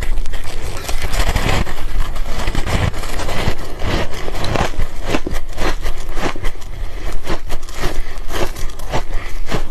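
Ice being bitten and chewed close to the microphone: a dense, irregular run of sharp, crisp crunches with no pause.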